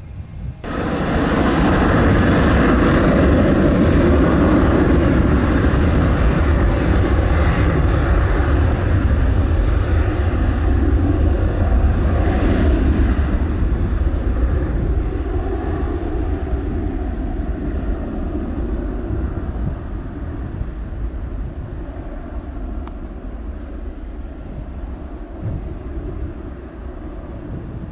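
Twin-engine Airbus jet airliner's engines at takeoff power as it rolls down the runway: a loud, deep rumble that rises sharply about a second in, then slowly fades as the aircraft moves away.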